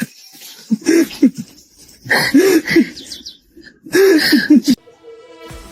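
Three short runs of hoarse, breathy vocal sounds from a voice, each a cluster of quick pitched syllables. Near the end the sound cuts off and music begins.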